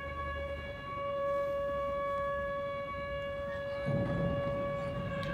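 A single steady tone at one unchanging pitch, held without a break, with low rumbling handling noise joining about four seconds in.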